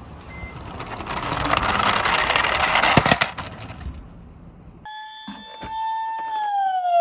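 Toy minicar wheels rolling down a plastic slope in a rushing rattle that grows louder, ending with a sharp click about three seconds in. Nearly five seconds in, an electronic toy siren tone starts, holds steady, then glides down in pitch near the end.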